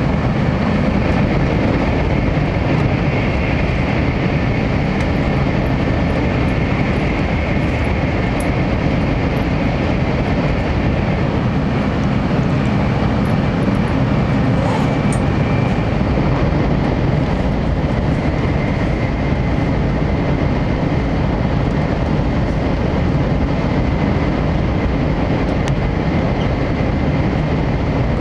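Steady rumble of a moving train, with a faint high whine over it.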